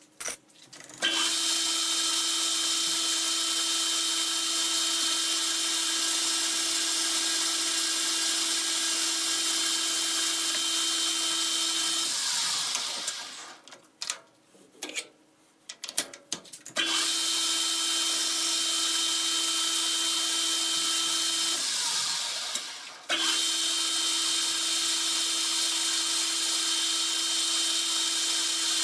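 Metal lathe running with a steady whine while turning a 4140 steel shaft down to size. It runs, winds down near the middle with a few clicks, starts again, briefly slows and starts once more.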